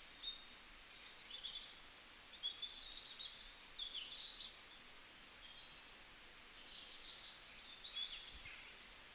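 Tufted capuchin giving high-pitched chirps, squeaks and short whistles in quick succession, thinning out about halfway through and picking up again near the end, over a faint steady hiss.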